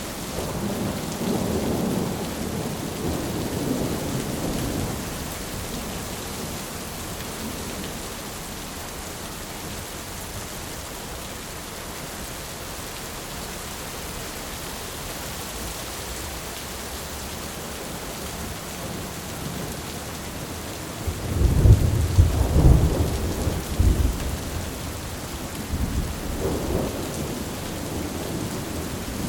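Heavy rain falling steadily through a thunderstorm. A low rumble of thunder rolls in the first few seconds, and a louder, sharper thunderclap breaks about three-quarters of the way through, followed by a smaller rumble.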